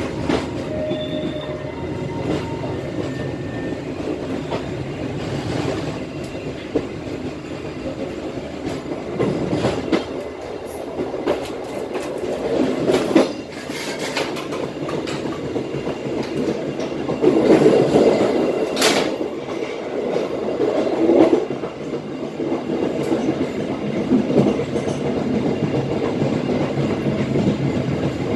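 A passenger train running slowly, heard from inside its cab: a steady rolling rumble with the wheels clicking and knocking over rail joints and through a set of points. The loudest single sharp metallic knock comes about two-thirds of the way in.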